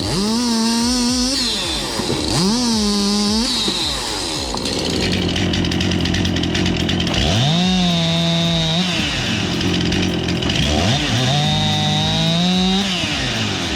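Chainsaw engine revved up four times, each rev held for one to two seconds and then dropping back to a lower running sound in between.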